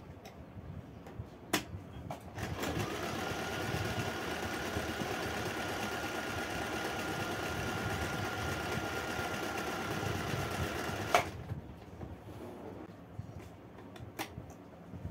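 Acme 565 free-arm domestic sewing machine, with an oscillating hook, running steadily for about nine seconds as it stitches fabric, with a steady high whine over the motor. The run stops with a sharp click, and a few light clicks come before and after it.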